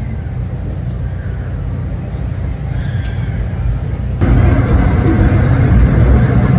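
Train passing with a steady low rumble. About four seconds in, the sound jumps abruptly louder.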